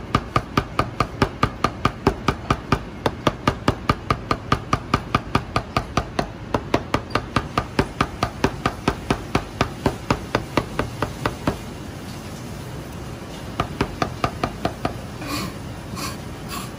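Chinese cleaver rapidly mincing garlic on a thick round plastic chopping block, an even run of about four to five chops a second that stops about two thirds of the way through. A few scattered, lighter knocks and clicks follow near the end.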